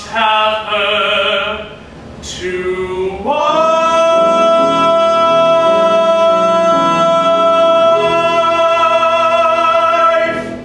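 Two male voices singing a musical-theatre duet with piano accompaniment: a few short sung phrases, then from about three seconds in a long held high final note that cuts off near the end.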